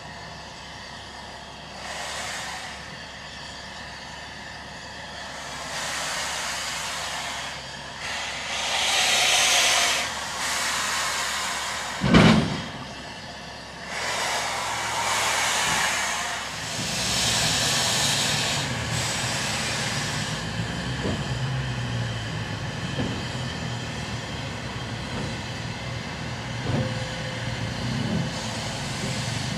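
Furka HG 3/4 rack steam locomotive letting off steam in repeated hissing blasts, each lasting a second or two. A single loud thump comes about halfway through, and in the second half a low rumble with a few light knocks.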